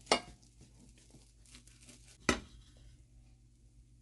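Kitchen knife cutting through a toasted sandwich on a plate: soft crunching strokes of the blade through the crisp bread, with two sharp knocks of the knife against the plate, one at the start and one a little past halfway.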